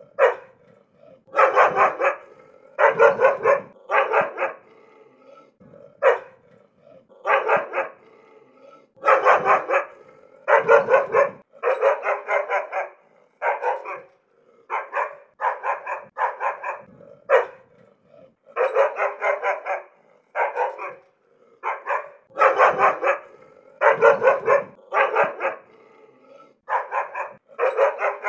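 A dog barking angrily and repeatedly, in quick runs of one to three barks separated by short pauses.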